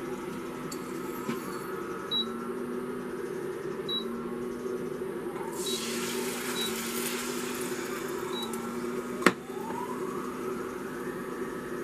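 Beaten eggs poured from a stainless steel bowl into a hot oiled pan on an induction cooktop, sizzling from a little past halfway, over the steady hum of the Ikea TILLREDA cooktop's fan. A single sharp knock near the end.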